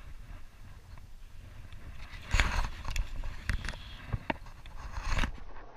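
A hooked Atlantic salmon thrashing at the surface, setting off a run of irregular splashes from about two seconds in until near the end.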